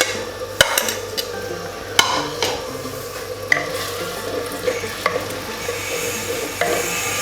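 Chopped onion with ginger, garlic and green chilli paste sizzling in hot oil in a clay handi. A spoon stirs it, knocking against the pot about every second and a half.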